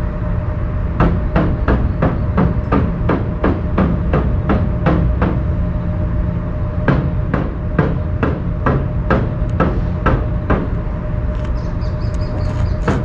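Rhythmic knocking, like hammer blows, about three strikes a second, in two runs of about four seconds each separated by a short pause, over a steady low rumble.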